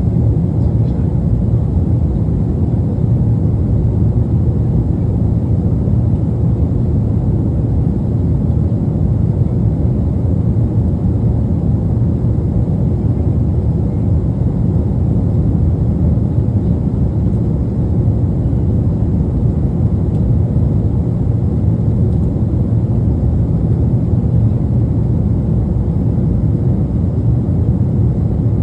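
Steady jet-airliner cabin noise heard from a passenger seat: a constant deep rumble of the engines and air rushing past the fuselage.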